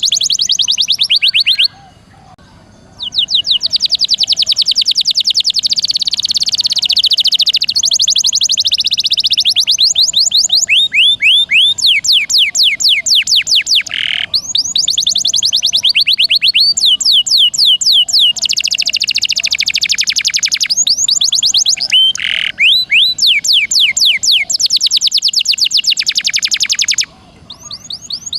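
Domestic canary singing long, rapid trills (rolls): runs of fast, repeated downward-sweeping high notes that change speed from phrase to phrase, with brief pauses about two seconds in and near the end.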